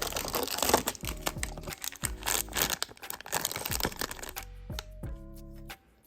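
Packaging torn open and crinkled for about four seconds, with many small clicks, over soft background music; after that the music goes on alone.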